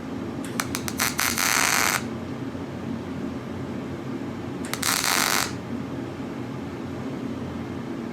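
Two short welding arcs, tack welds on a steel V-band flange. Each starts with a few sputtering crackles and then runs as a steady loud crackle for under a second and a half, the second about three seconds after the first. A steady low hum runs underneath.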